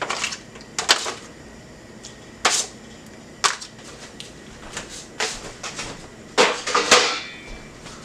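Kitchen clatter: a series of sharp clicks and knocks, roughly once a second, as pots, utensils and containers are handled. The loudest pair comes near the end.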